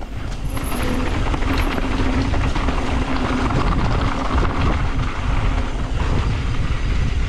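Mountain bike riding down a dirt trail, heard on an action camera: steady rush of wind on the microphone and rumble of the tyres over the ground, with many small knocks and rattles.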